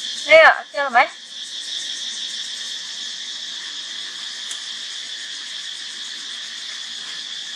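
A steady, high insect chorus drones throughout. In the first second, two short, high-pitched calls rise and fall in pitch; they are the loudest sounds.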